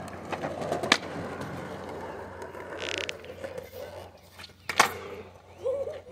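Skateboard wheels rolling on concrete, with sharp clacks of the board against the ground about a second in and again, loudest, near the end as the skater pops a trick.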